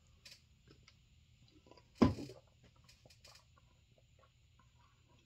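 A man drinking from a plastic bottle: faint small clicks and swallowing sounds, then about two seconds in one short, loud vocal sound that falls steeply in pitch.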